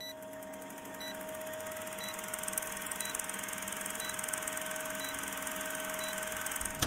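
Old-film countdown leader sound effect: a film projector's rapid rattle over hiss and a steady hum, with a short high beep once a second as the count runs down, seven beeps in all.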